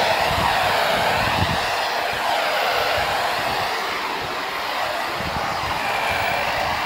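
Corded electric hedge trimmer running steadily, its motor and reciprocating blades cutting through a leafy hedge.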